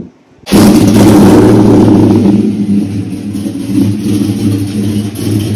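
Cammed single-cab pickup's engine running. It comes in suddenly about half a second in, is loudest for the first second and a half, then settles lower into a steady idle.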